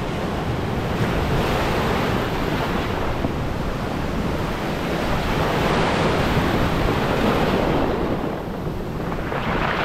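Rough surf washing onto the shore, with wind buffeting the microphone. The wash swells through the middle, eases briefly near the end, then builds again.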